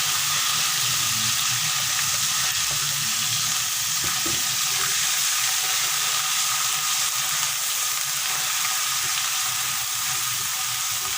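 Ground rendang spice paste sizzling steadily in hot oil as it is sautéed in a pan.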